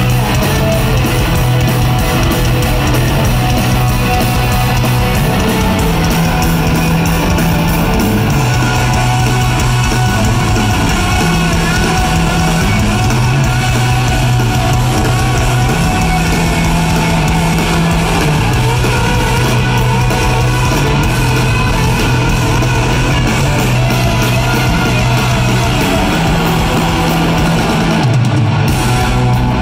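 Rock band playing live in an arena: loud distorted electric guitars over bass and drums, with the low bass notes changing every second or two.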